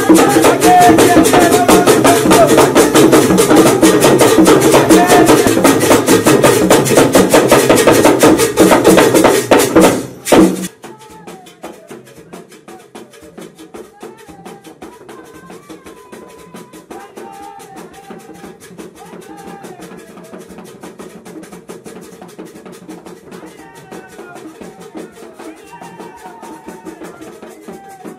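Drum ensemble playing loud, fast, dense rhythms for dancing. About ten seconds in the sound drops suddenly to much quieter music with a wavering melody over a light beat.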